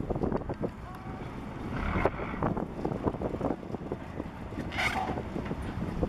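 Strong wind buffeting the microphone over the low running of a small passenger ferry's engine as it holds against the pier. A brief hiss about five seconds in.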